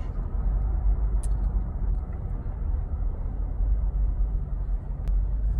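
Steady low rumble of road and engine noise heard inside a car's cabin, with a couple of faint clicks.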